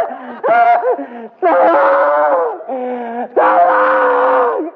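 A man wailing in exaggerated mock pain, about four long drawn-out cries in a row.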